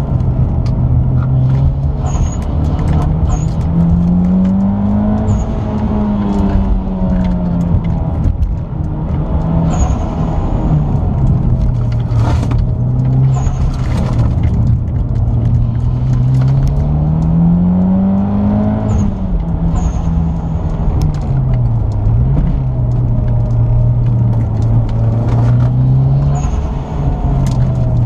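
Mitsubishi Lancer Evolution X's turbocharged four-cylinder engine heard from inside the cabin at track pace, the revs climbing and falling with the driving. There are two long climbs in pitch, the second ending in a sudden drop about two-thirds of the way in.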